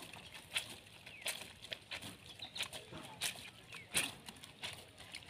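Clothes being hand-washed in water: a rhythmic swish of wet fabric scrubbed together, about one stroke every two-thirds of a second. Faint bird chirps behind.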